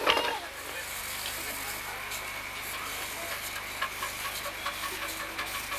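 Miniature live-steam locomotive hissing steam as it stands at the station, with faint clicks coming more often in the second half.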